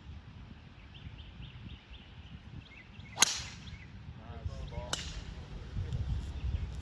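A golf club striking the ball: one sharp crack about three seconds in, followed by a fainter click about a second and a half later.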